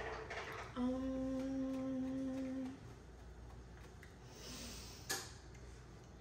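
A person hums one long, even closed-mouth "mmm" lasting about two seconds. A single short click comes a few seconds later.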